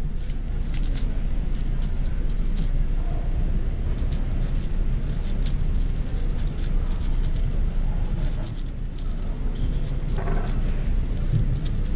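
MoYu AoShi WR M 6x6 speedcube being turned rapidly: a stream of quick plastic clicks and clacks, over a steady low background rumble.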